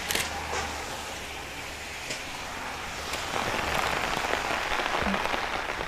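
Steady rain falling, heavier from about three seconds in, with a few sharp drips near the start.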